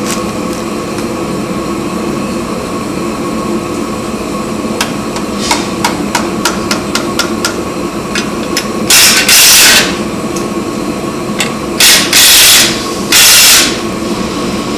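A run of about ten sharp taps, then a handheld cordless power driver run in four short bursts, the loudest sounds here, over a steady workshop hum.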